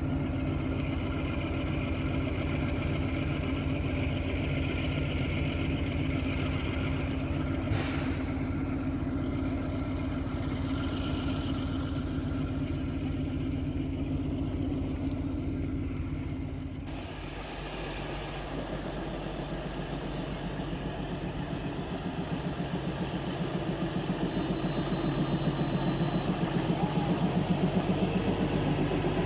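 Diesel locomotive engine of the narrow-gauge Kalka–Shimla toy train running with a steady, even throb. The sound changes abruptly about halfway through, then a rhythmic pulsing grows steadily louder toward the end.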